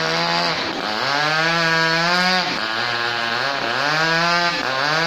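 Two-stroke chainsaw revving in a run of bursts about a second long, its pitch sagging between them as it cuts tree limbs.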